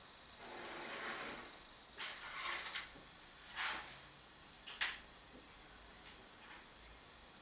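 Hands handling things on a tabletop: a longer rustling scrape, then three shorter scrapes over the next few seconds, the last the sharpest.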